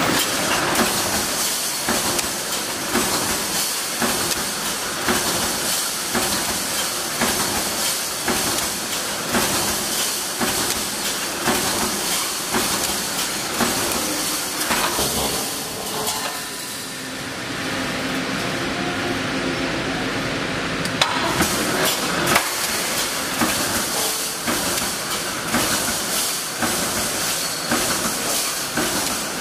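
Automatic steel wire mesh welding machine running: a steady mechanical clatter and hiss with regular strokes about once a second as the welding heads come down on the wire. The noise eases for a few seconds a little past the middle, then picks up again.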